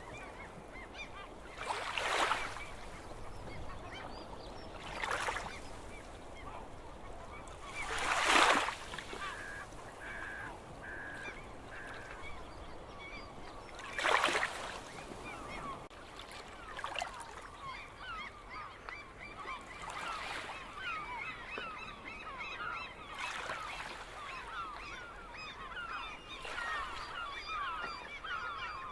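Seagulls calling over the sea, with surf surging in every few seconds through the first half; a short run of four repeated calls comes about ten seconds in, and in the second half many short gull calls overlap.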